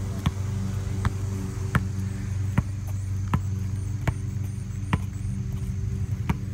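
Sharp taps on pavement, about one every three-quarters of a second, over a steady low hum.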